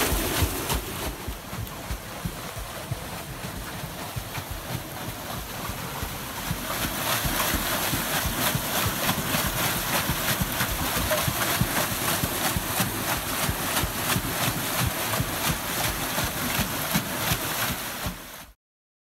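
Steel waterwheel turning in a river, its paddles splashing and churning through the rushing water. The splashing gets louder about a third of the way in and stops suddenly near the end.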